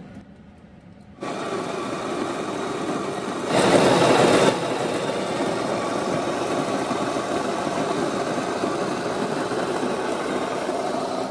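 Grind-and-brew coffee maker's built-in bean grinder running, a steady, tremendous grinding noise that starts about a second in, grows louder for about a second around the four-second mark, and stops suddenly right at the end.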